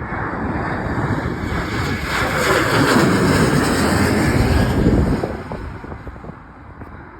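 Jet airliner passing close by: a rushing roar that builds to its loudest in the middle, then falls away over the last couple of seconds.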